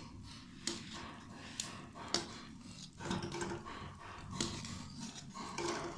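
Long metal spoon stirring thick besan kadhi in a steel kadhai, with several light clicks of the spoon against the pan.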